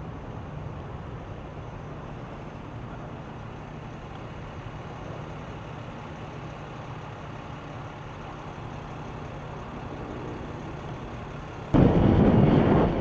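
Steady distant low rumble, then about twelve seconds in an abrupt jump to the much louder sound of a helicopter flying overhead, its rotor and engine noise deep and full.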